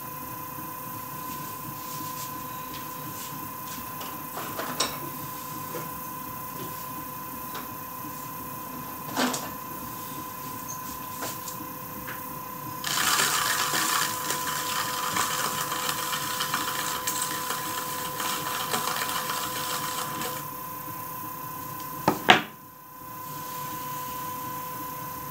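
Electric potter's wheel running with a steady motor whine while wet clay is shaped by hand on it. About halfway through, a louder rubbing hiss of hands on the spinning clay lasts several seconds; a few light knocks, and a sharp knock near the end.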